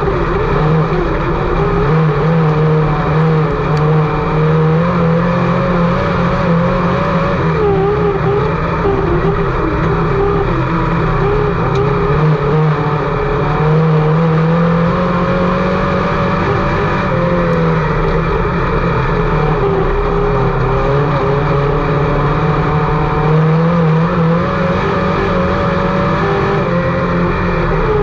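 Dirt-track race car engine running hard under racing load, its pitch rising and falling every few seconds as the throttle is worked on and off.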